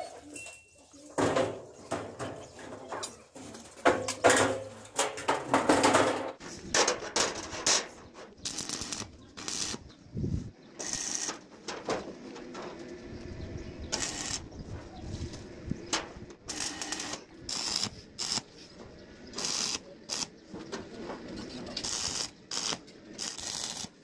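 Steel door frame and corrugated sheet clanking and rattling as the panel is handled onto trestles, then a run of short crackling bursts, one every second or two, from stick (arc) welding as tack welds are laid along the sheet seam.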